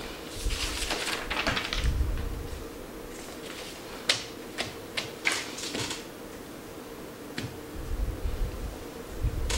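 Handling noise at a desk: a rustle in the first couple of seconds, then a run of sharp separate clicks and taps as a mobile phone is picked up and handled, and more rustling near the end, over a steady low hum.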